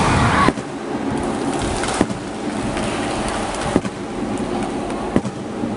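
Crowd cheering and children's shouts cut off abruptly about half a second in, leaving a steady hubbub of a large audience in a big, echoing sports hall, broken by a few single sharp knocks.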